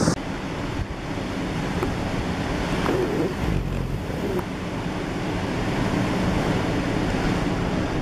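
Storm surf and wind: heavy, muddy seas surging into a small harbour and washing over the shore, stirred up by a passing typhoon, with gusty wind buffeting the microphone. It makes a steady, unbroken rush.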